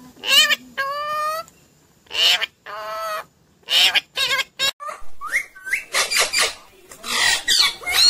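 Indian ringneck parakeet calling close by: a string of loud, harsh calls and shorter chirps, a few of them rising quickly in pitch about five seconds in.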